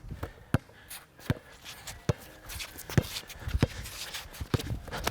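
A basketball being dribbled on a court: a series of sharp bounces, roughly one a second, with footsteps shuffling between them.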